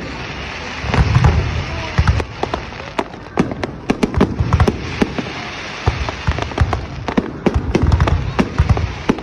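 Fireworks going off: a rapid, irregular string of sharp cracks and crackles, with deeper booms about a second in, midway and near the end.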